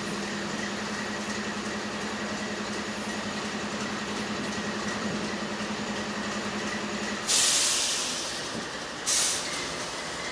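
Train noise with a steady pulsing hum that stops about seven seconds in as a loud burst of compressed air hisses out. A second, shorter air burst follows about two seconds later.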